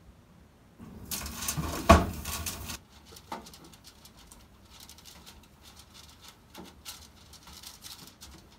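A brush scraping and dabbing over an aluminium roasting pan, spreading olive oil so the food won't stick, in faint, uneven strokes. Before that, about a second in, a louder rustle with a sharp knock about two seconds in.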